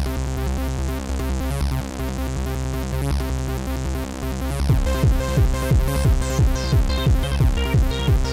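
Electronic dance music from an Amiga demo soundtrack: held synth chords over a steady bass, with a kick drum beat of about three strikes a second and a high ticking rhythm coming in about halfway through.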